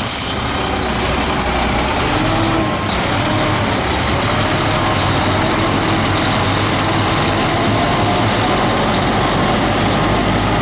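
Freightliner F112 cement mixer truck's diesel engine running steadily under light throttle as the truck creeps forward, with a faint slowly rising whine.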